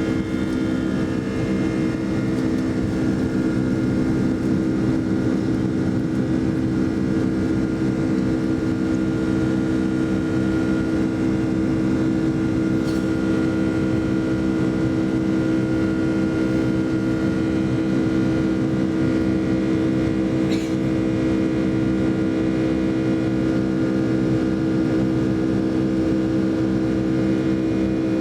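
Cabin noise of a Boeing 757-200 with its Rolls-Royce RB211 jet engines: a steady drone with several held whining tones over a low rumble, even in level throughout.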